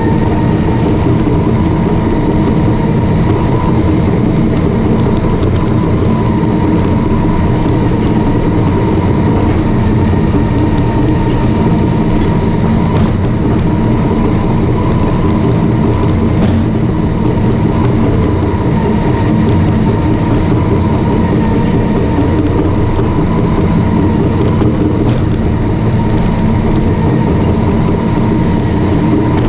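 Caterpillar D5 crawler bulldozer working: its diesel engine running loud and steady, with the steel tracks clattering and a thin, steady high whine over it.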